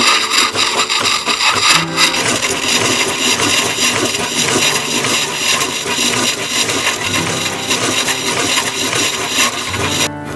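Vintage Empire scroll saw running, its blade reciprocating rapidly and sawing through wood with a fast, continuous rasp that stops near the end.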